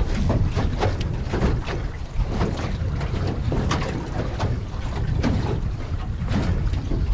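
Small boat moving slowly on choppy water: waves slapping and splashing against the hull, with wind buffeting the microphone and a steady low rumble.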